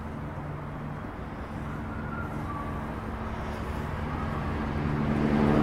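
Motor vehicle engine running with a steady hum, growing louder toward the end as it comes closer.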